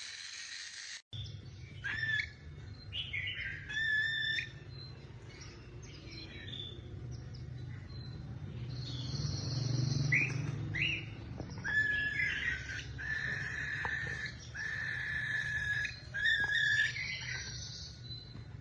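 A parrot whistling and chirping: short sliding chirps, then a run of held whistled notes at one pitch, over a steady low hum.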